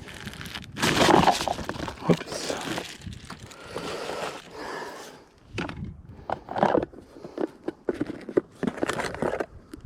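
Irregular handling noises: rustling and scraping with sharp clicks and knocks, starting and stopping unevenly.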